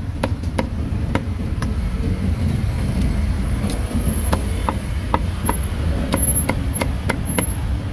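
A cleaver chopping roast meat on a chopping board, a dozen or so sharp knocks at an uneven pace, over a steady low rumble of street traffic.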